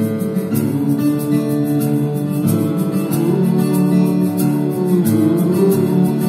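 Acoustic guitar music played live, with steady sustained chords and notes.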